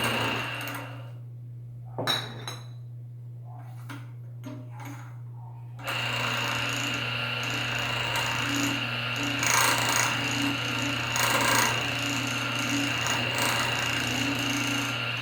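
Homemade beer-bottle washing machine driven by an old automatic gate opener's electric motor, running with a steady whine. It stops about a second in, a few knocks follow, and it starts up again about six seconds in.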